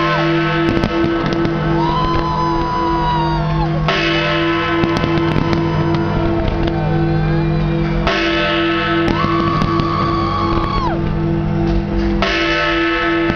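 Music playing loud for a New Year's Eve fireworks display, with a pulsing beat and a change of section about every four seconds, over a crowd's shouts and short firework cracks.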